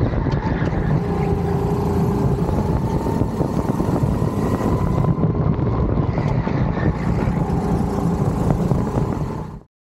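Go-kart heard from onboard while being driven at speed on a track: its motor runs hard over a steady rush of noise, the motor note shifting a little in pitch as it goes. The sound cuts off abruptly near the end.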